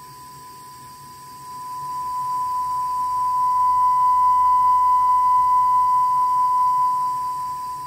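Steady 1 kHz sine test tone played through a TPA3116D2 class D amplifier board into speakers. It swells much louder from about a second and a half in as the volume knob is turned up, holds, then eases down near the end. The tone sounds clean, with little distortion.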